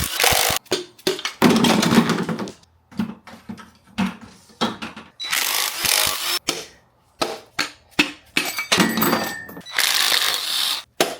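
Quick succession of short, abruptly cut bursts of tool and metal-parts noise from a big-block Chevy 454 engine being taken apart, spliced together with brief silent gaps.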